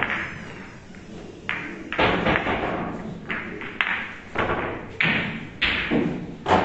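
Billiard balls of a boccette game knocking against each other and the table, a string of about ten sharp clacks and thuds at uneven intervals.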